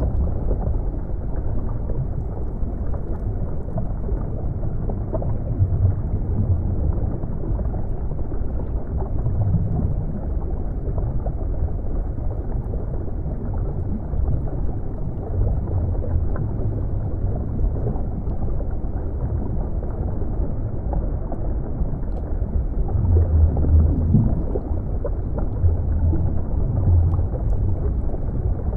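Muffled underwater ambience: a steady low rumble of moving water, with slow louder swells in the deep rumble, the strongest a few seconds before the end.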